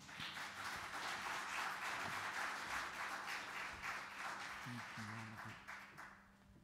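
Congregation applauding after a song, a spread of many hands clapping that fades out about six seconds in.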